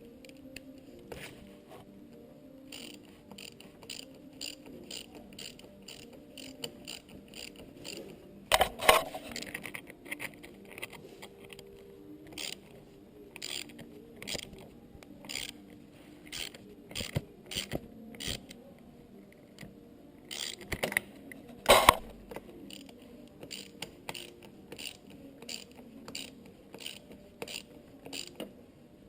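10mm ratchet wrench clicking in quick runs, about two clicks a second, as the bolt on the kickstarter lever is tightened. Two louder metallic knocks come about a third of the way in and again about three quarters of the way through.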